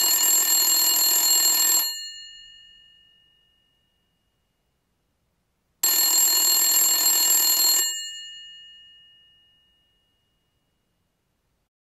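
Telephone ringing twice, each ring lasting about two seconds and leaving a ringing tail that fades out, with about four seconds of silence between the rings.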